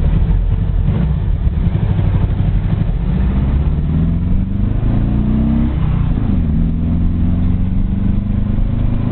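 Air-cooled flat-four engine of a Volkswagen Beetle pulling hard, heard from inside the cabin: the engine note climbs, drops sharply at a gear change a little past halfway, then climbs again.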